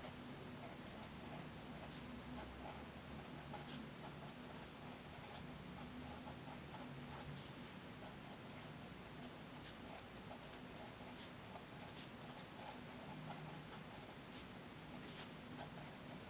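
Pen writing on notebook paper: a faint, continuous scratching with small taps as strokes start and lift. A low steady hum lies underneath.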